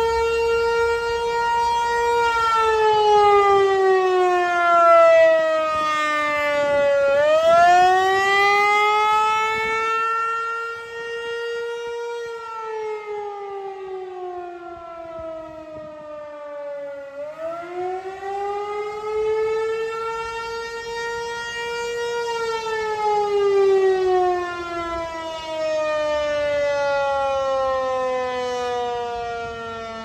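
Federal Signal 508 outdoor warning siren sounding the attack tone in a scheduled test. It is one loud wailing tone that holds, slides slowly down for several seconds, then swoops quickly back up, about three times over.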